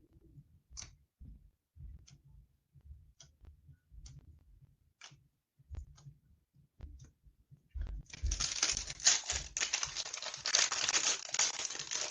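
Trading cards being handled, with scattered soft clicks and taps. About eight seconds in, a foil booster-pack wrapper is torn open and crinkled for about four seconds, the loudest sound.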